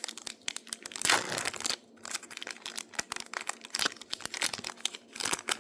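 Foil wrapper of a baseball card pack crinkling and tearing as it is opened: a dense run of crackles, louder about a second in and again near the end.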